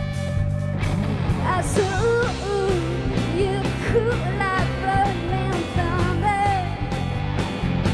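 Live rock band playing: steady bass and drums under a wavering, bending lead melody that comes in about a second in.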